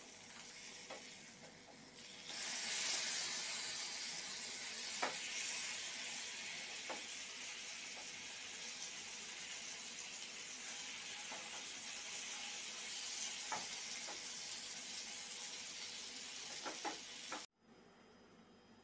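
Coated potato slices shallow-frying in oil in a nonstick pan, sizzling steadily. The sizzle jumps louder about two seconds in as the slices are turned over with a wooden spatula, and a few light taps of the spatula on the pan come through it. The sizzle stops abruptly near the end.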